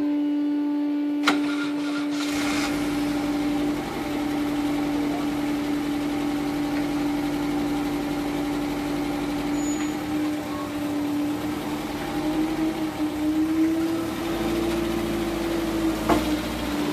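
A VW Vanagon's engine starts about two seconds in and idles, then works harder near the end as the van is backed up onto wheel ramps. A steady hum runs throughout.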